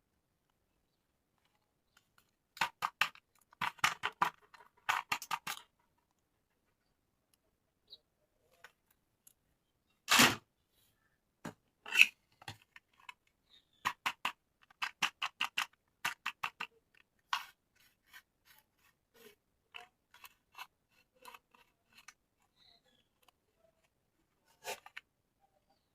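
Plastic toy parts and packaging being handled: bursts of quick small clicks and crinkles, with one louder rustle about ten seconds in and a sharp click soon after.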